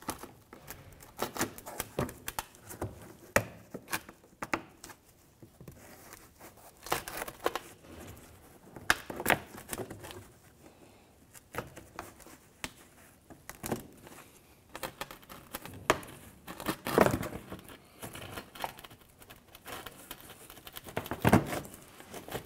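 Stiff plastic splash shield and wheel-well liner being handled and fitted: irregular crinkling, scraping and sharp clicks as the panel is worked into place and push-in retaining clips are pressed home. A few louder knocks stand out, the loudest near the end.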